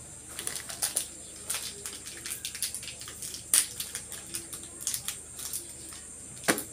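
Thick tomato spaghetti sauce simmering in a frying pan, its bubbles popping and spitting in irregular soft clicks, with a few louder pops.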